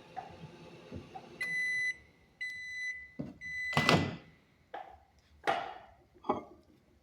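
Microwave oven beeping three times in long, steady tones, the usual signal at the end of a heating cycle, as its low running hum dies away. This is followed by several clunks and knocks of the door and latch, the loudest about four seconds in.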